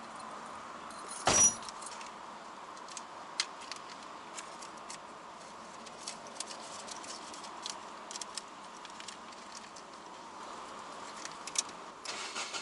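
Inside a stationary car, one loud knock about a second in, then scattered light clicks and rustles as small items such as a paper slip are handled in the driver's hands.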